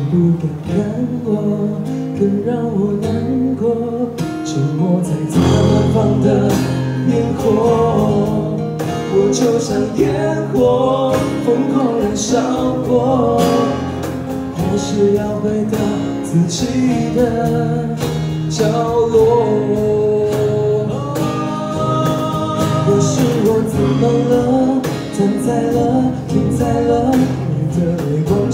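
Live acoustic pop band playing: strummed acoustic guitars and electric guitar over a steady cajon beat, with a voice carrying the melody.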